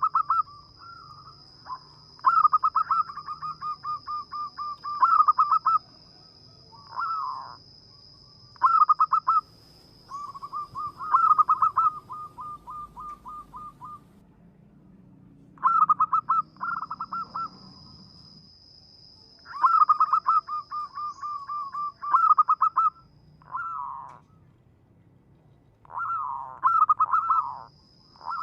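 Zebra dove (perkutut) cooing: repeated phrases of rapid pulsed coo notes, each a few seconds long with short pauses between. A faint steady high-pitched tone comes and goes behind it.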